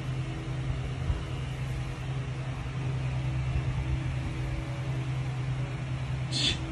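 A steady low mechanical hum, with one brief high-pitched sound near the end.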